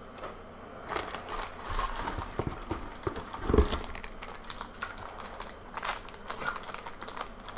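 Handling of HeroClix packaging: a run of small clicks, taps and rustles from plastic figure cases, the cardboard case and a foil booster pack, with one louder knock about three and a half seconds in. The foil pack crinkles as it is picked up near the end.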